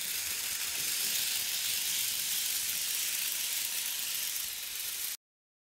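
Bachmann N scale steam locomotive and freight train running on the track: a steady, high-pitched hiss of the small motor and the wheels on the rails, which cuts off suddenly about five seconds in.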